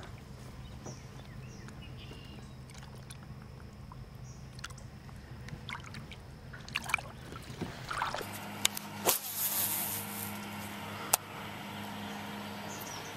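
Water sloshing and splashing at the side of a small boat as a largemouth bass is lowered into the lake and released, over a steady low hum. A few sharp splashes and knocks come in the second half.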